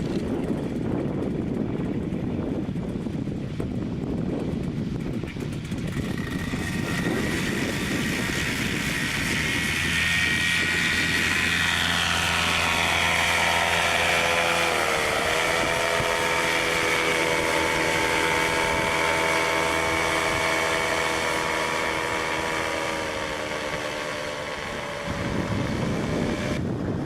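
Wind buffeting the microphone, then a paramotor's engine and propeller drone fades in and holds a steady pitch. The pitch dips briefly about halfway through, and the drone cuts off suddenly near the end, leaving wind noise.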